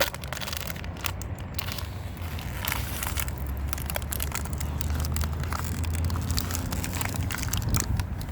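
Irregular crunching and crackling footsteps on a rough trail, over a steady low rumble that grows louder in the middle.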